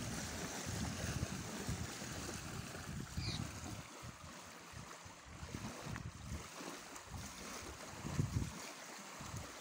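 Outdoor wind buffeting the microphone in uneven gusts, over a faint steady rush of river water.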